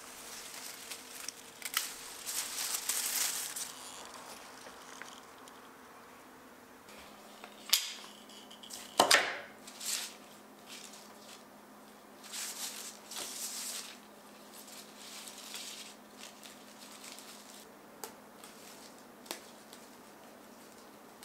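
Cut evergreen and nandina branches rustling and crinkling against paper as they are handled and laid out, with a few sharp clicks and snaps, the loudest about nine seconds in. A faint steady hum lies underneath.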